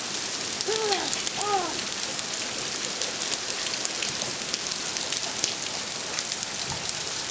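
Steady heavy rain falling on hard surfaces: an even hiss dotted with many small drip ticks. About a second in, two short rising-and-falling pitched sounds rise above the rain, a little over half a second apart.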